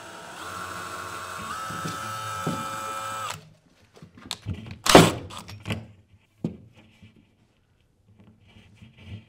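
Cordless drill spinning an insulation hanger up through a drywall ceiling; its motor whine steps up in pitch twice, then stops about three seconds in. A loud knock follows about five seconds in, with a few lighter clicks around it.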